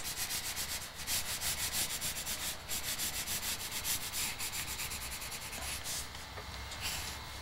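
Pencil scratching on paper in many quick, short strokes as fine lines of an underdrawing are drawn. The strokes grow sparser near the end.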